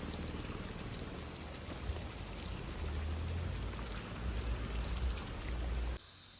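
Steady hiss of running water with a low rumble underneath; it cuts off abruptly near the end.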